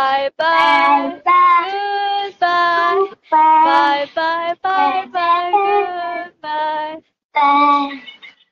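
A woman and a young child singing a children's goodbye song, a run of short sung notes with brief breaks between phrases.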